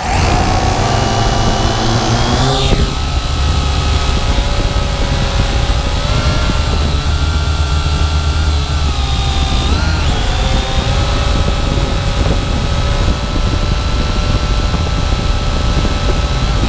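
Syma X8W quadcopter's motors and propellers whirring loudly. The sound starts suddenly, its pitch slides about two to three seconds in, then holds a steady whine with brief changes in pitch as the throttle is adjusted, around ten seconds in.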